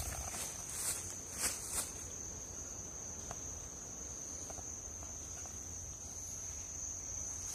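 Night insects trilling in one steady high note, with a few soft rustling steps in the first two seconds.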